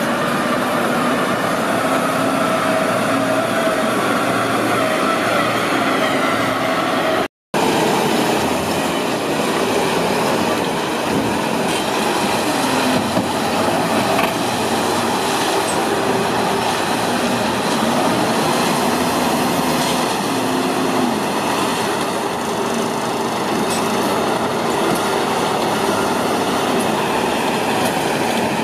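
Luzun self-loading concrete mixer's diesel engine and hydraulics working as it drives and loads with its front bucket: a loud, steady machine noise with a constant whining tone. The sound breaks off for an instant about seven seconds in.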